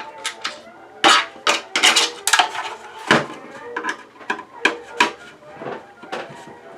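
Irregular hard plastic clicks, knocks and cracks as an Arris cable modem's casing is being taken apart, the loudest cluster a little after the first second.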